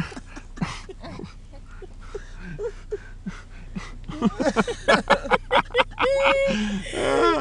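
Rustling and bumping of bedding and tent fabric as someone squeezes into a crowded tent, then, about four seconds in, voices giggling and squealing, with one short held squeal near the end.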